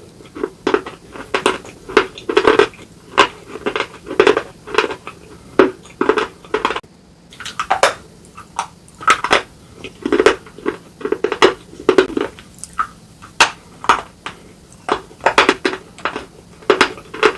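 Close-up chewing and crunching of slate pieces: sharp, brittle crunches come roughly two a second, with a short pause about seven seconds in.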